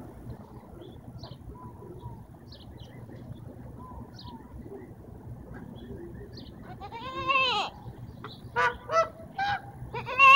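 A puppy in a wire kennel howling and yelping. About seven seconds in comes a loud call that rises and falls in pitch, then three short yelps, then a long loud howl begins at the end.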